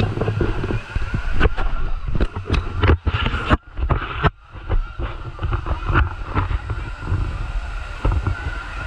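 Wind rumbling on the microphone of a handheld camera, with many sharp knocks from handling. Beneath it runs a steady wash of noise, and the whole dips briefly near the middle.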